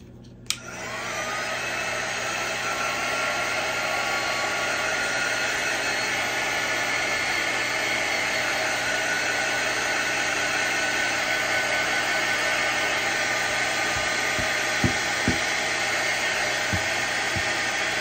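A small handheld craft blow dryer switches on with a click, spins up with a rising whine and then runs as a steady whir, drying freshly applied chalk paste. A few faint knocks come near the end.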